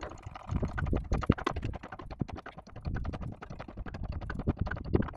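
DAF LF's hand-operated hydraulic cab-tilt pump being worked with a lever bar as the cab tips forward: a fast, continuous run of clicks and knocks over a low rumble.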